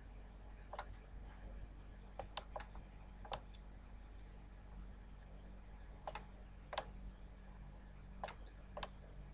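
Sharp, irregular clicks of a computer mouse and keyboard, about ten in all, some in quick pairs and threes, over a faint steady low hum.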